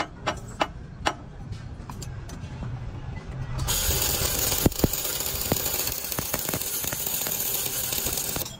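A few sharp hammer taps on the steel chassis frame, then a stick welder's arc crackling and hissing steadily for about five seconds as a weld is run along the frame rail, with a couple of sharp pops, cutting off suddenly near the end.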